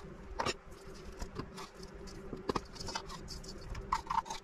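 Spice rub of crushed coriander and sesame seeds pattering as it is shaken from a small bowl onto raw chicken leg quarters in a stainless steel bowl, with scattered light clicks and ticks.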